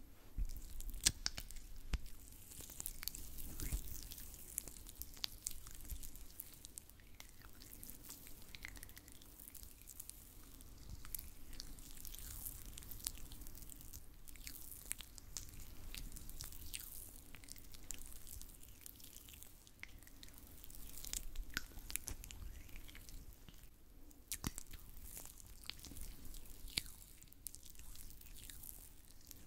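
Oiled hands rubbing and squishing together close to the microphone, a steady run of soft wet crackles and clicks.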